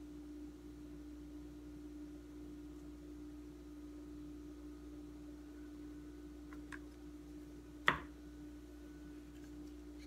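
Quiet room tone with a steady low hum. Two small clicks come a little before the seven-second mark, then one sharp tap at about eight seconds, the loudest sound here.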